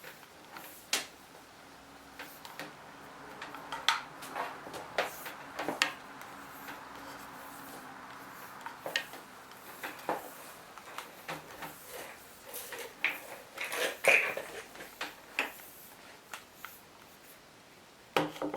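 Scattered light knocks and clicks at irregular spacing, the sound of small hard objects being handled and set down.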